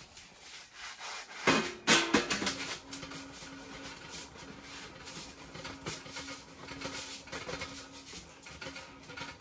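Sheet-metal stovepipe sections of a tent wood stove being twisted and pushed together and up through the tent's stove jack: metal scraping and rubbing, with a few sharp clanks about two seconds in.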